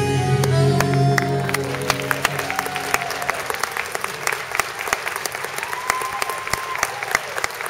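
The song's final held chord fades out in the first couple of seconds as an audience breaks into applause. The clapping carries on steadily, with a few cheers rising over it.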